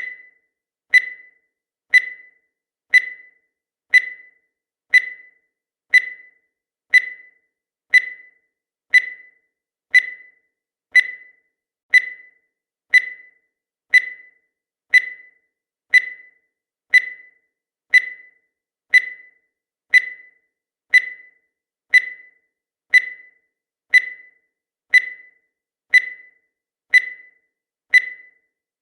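Countdown timer beeping once a second: a short, high-pitched electronic beep that dies away quickly, marking each second of the count.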